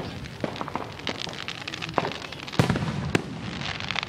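Aerial fireworks going off: scattered pops and crackles, with sharp bangs of shells bursting, the two loudest about two and a half and three seconds in.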